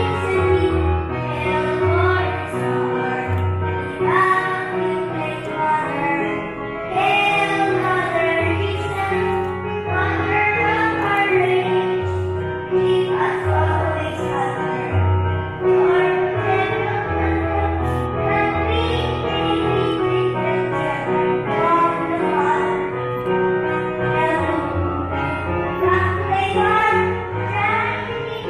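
Young children and a woman's voice singing a song together over instrumental accompaniment with a steady bass line.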